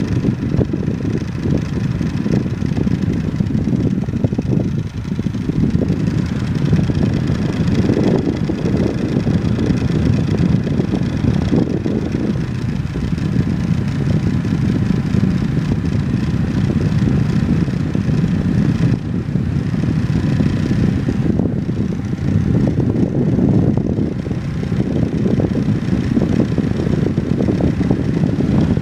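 Lakewood Model 900 10-inch desk fan running steadily: a continuous rush of moving air from its spinning blades.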